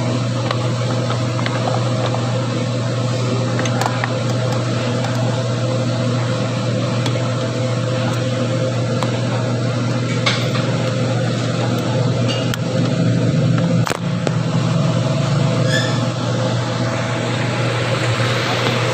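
A steady low machine hum with a few faint clicks over it.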